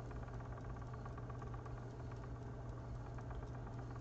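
Magpie Daedalus spinning wheel running steadily as it spins art yarn, with a constant low hum and a fast, light clicking from the whirling flyer and bobbin.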